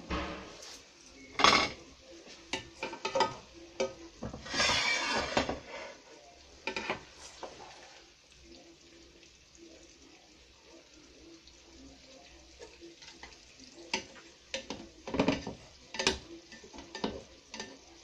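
Serving spoon scraping and knocking against a copper-coloured nonstick frying pan as cooked red peppers and onions are scooped and stirred: scattered sharp clinks and knocks, with a longer rasping rush about five seconds in and a quieter stretch in the middle.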